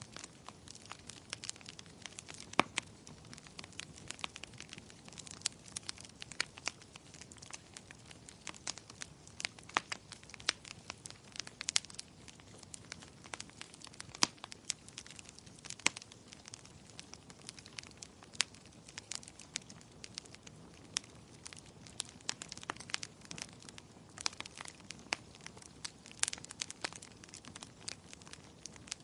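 Wood fire in a fireplace crackling: a steady soft hiss with frequent sharp, irregular pops and snaps.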